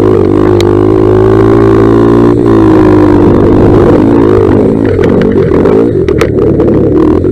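1982 Honda XR200R dirt bike's single-cylinder four-stroke engine running under way on a trail, close to an onboard camera. Its pitch holds steady for about two seconds, then drops and wavers up and down with the throttle, and a few sharp ticks sound near the end.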